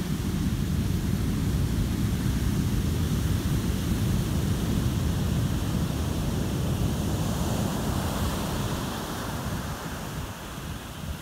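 Heavy shorebreak surf crashing and washing up the sand in a continuous rush, with wind buffeting the microphone. It quietens somewhat for the last couple of seconds.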